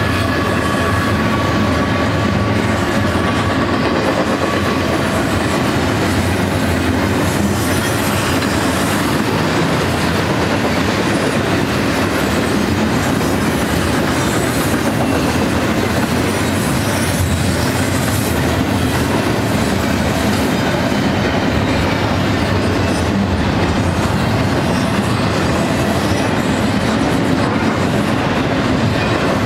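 Loud, steady rolling noise of a double-stack intermodal container train's steel wheels on the rails as the well cars pass close by. A faint high squeal from the wheels is heard over it at first and fades out after about five seconds.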